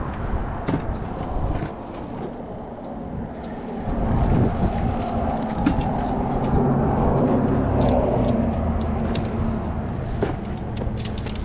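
Road traffic rumbling by on the bridge overhead, growing louder about four seconds in and easing near the end, with scattered light clicks and knocks of fishing gear being handled.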